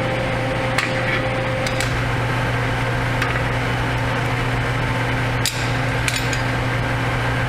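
A steady low machine hum, with a handful of short metallic clicks and taps scattered through it.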